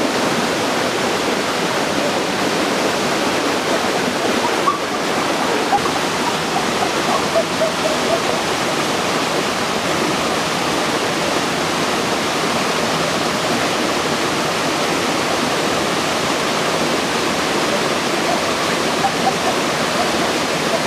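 Steady rush of a rocky stream cascading over a small waterfall, with no break.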